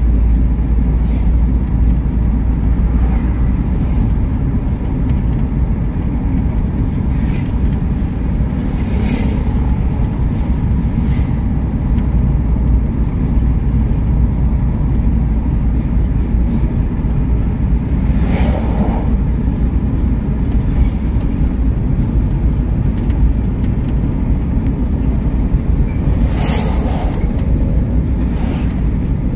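Car driving on a paved highway, heard from inside the cabin: a steady low road and engine rumble, with a few brief whooshes, the strongest near the end.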